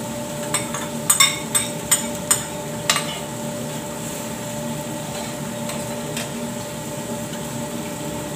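A metal spoon clinks against a ceramic bowl and a steel frying pan while tomato sauce is scraped out of the bowl into the pan: several sharp clinks in the first three seconds. After that only a steady background hum remains.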